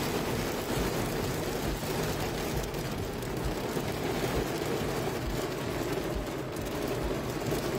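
Heavy rain beating on a car's windshield and roof, heard from inside the moving car as a steady hiss with faint low road rumble.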